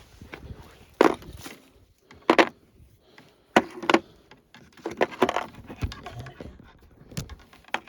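Hand tools being gathered up and put away: scattered knocks and clatters, about half a dozen louder ones at uneven intervals.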